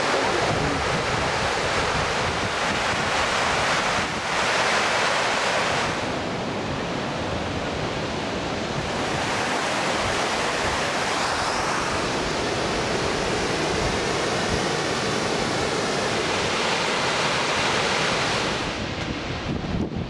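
Steady rush of a river and its waterfalls, mixed with wind on the microphone. The noise changes character a few times as the shot changes, and grows thinner and a little quieter near the end.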